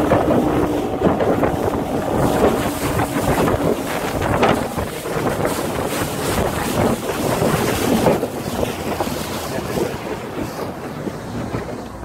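Motor of a wooden water taxi running under way, with a steady hum at first, water rushing and splashing along the hull, and wind buffeting the microphone.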